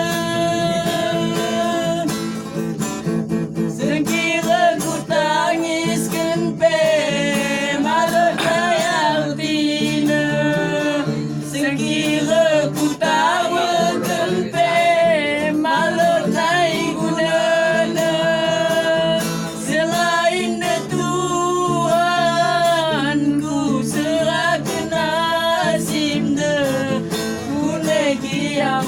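A child singing a slow melody over guitar accompaniment, holding long notes with a wavering vibrato.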